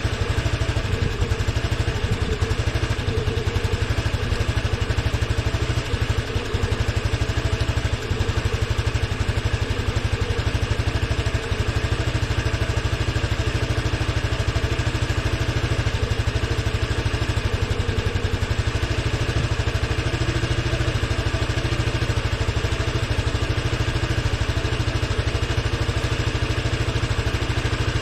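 Honda Helix scooter's single-cylinder four-stroke engine running steadily at idle, with an even rapid beat.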